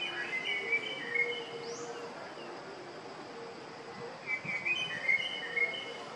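A bird sings two short phrases of clear chirping notes, one at the start and another about four seconds later, over a faint steady hum.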